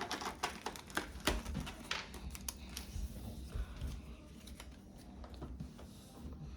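Pokémon trading cards being handled, with a run of light clicks and flicks as the cards are moved against each other, thinning out after about two and a half seconds.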